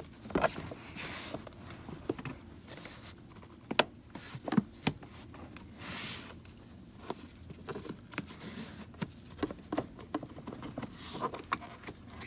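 Hands working a wiring harness and plastic trim: irregular clicks, taps and rustling scrapes of wire and plastic being handled and pushed into place.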